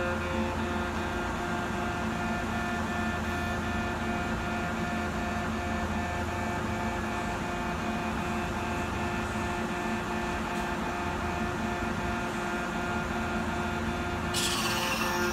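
Stationary Kintetsu limited express electric train humming steadily from its onboard equipment, a drone with several steady tones in it. About a second before the end, a loud hiss starts.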